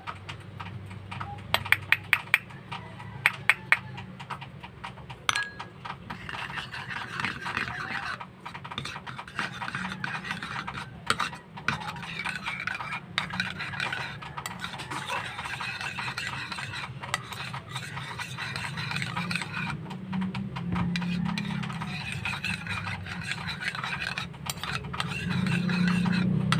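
A spoon clinking sharply against a container several times, then scraping as milk is stirred into squeezed oregano juice.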